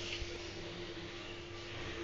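Faint, steady background hiss with a low, steady hum; no distinct event.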